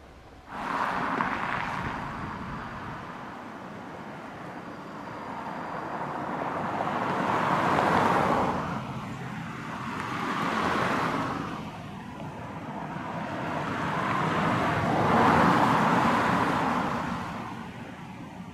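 HB-E300 series hybrid diesel railcar approaching along the track, its running noise swelling and easing three times as it draws nearer, then dropping away near the end.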